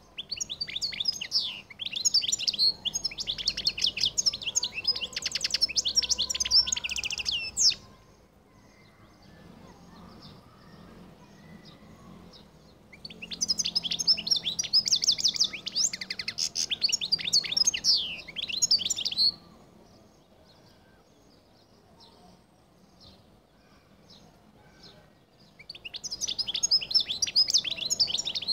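A European goldfinch of the Collo (Algerian) song line singing: fast, high twittering phrases in three bouts of several seconds each, with quiet pauses between, the last bout still going at the end.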